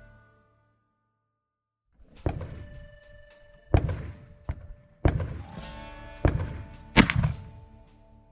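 Background music with loud percussive hits, starting about two seconds in after a short dead silence.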